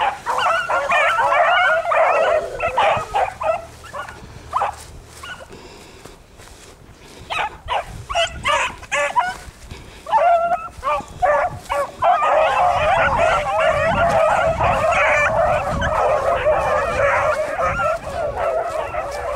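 A pack of beagles in full cry, running a rabbit: many overlapping yelping bays. For a few seconds in the middle the pack drops to scattered single cries, then it swells back into a continuous chorus for the last several seconds.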